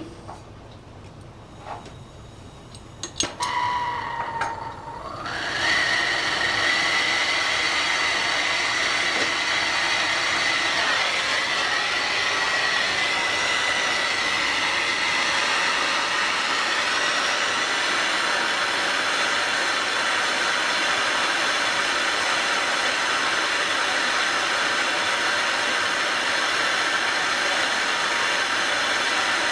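A few sharp clicks, then a gas torch lit about three seconds in and burning steadily with a loud hiss and a thin whistling tone, heating a threaded steel joint to red heat for silver soldering.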